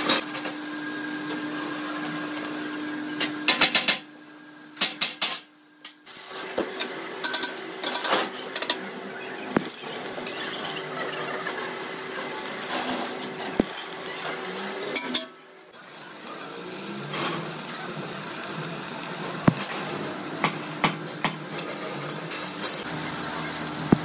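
Metalworking shop noise: irregular metal clanks and knocks over a steady motor hum. The hum steps up in pitch about six seconds in and drops out abruptly a few times.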